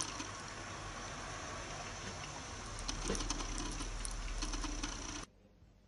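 Kitten sucking on its own paw: faint small wet clicks over a steady hiss, cutting off abruptly about five seconds in.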